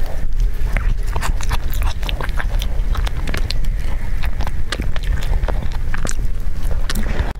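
Close-miked wet chewing and lip-smacking of soft chocolate-glazed cake: a rapid run of sticky mouth clicks over a steady low rumble.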